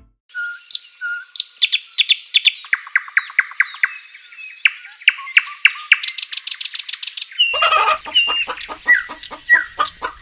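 Birds chirping in quick repeated notes and short trills; about seven and a half seconds in, a fuller run of rapid, lower calls joins in.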